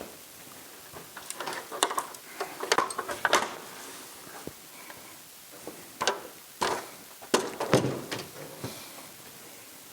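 Irregular knocks and clatters in two bursts, one about a second in and another around six seconds in, typical of hard objects being handled and set down in a small room.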